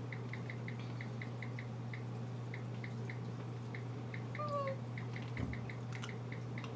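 Short high key beeps from a mobile phone being texted on, several a second in irregular runs, over a steady low electrical hum. About halfway through comes one brief falling, voice-like cry.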